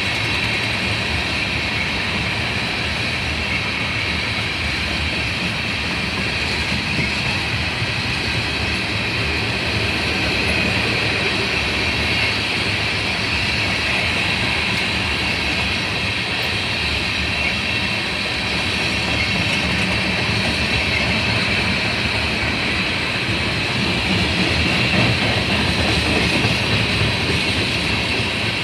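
Railroad cars rolling steadily past, a continuous rumble of steel wheels on the rails with a faint high wheel squeal.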